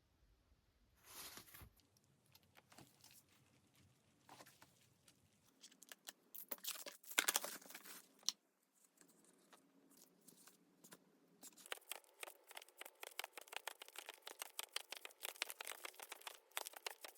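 Faint desk sounds of studying: scattered light taps and rustles, a denser cluster of handling noise about halfway, then a rapid run of light clicks over the last five seconds.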